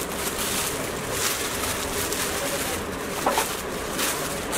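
Background din of a busy market shop: a steady hubbub with scattered short noises and a brief blip about three seconds in.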